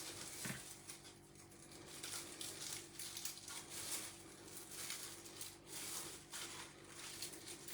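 Garlic being cut into pieces with a knife: faint, irregular small taps and rustles over a low steady hum.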